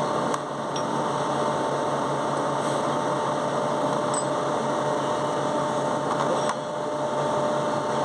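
Steady machine hum with two steady whining tones; the higher tone stops about six and a half seconds in. A few faint clicks of metal tools are heard over it.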